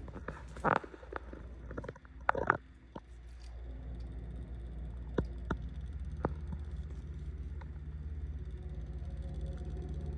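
Low steady humming rumble with a fast, even pulsing: the unexplained noise coming from the corner by the window. A couple of louder knocks and rustles come in the first three seconds.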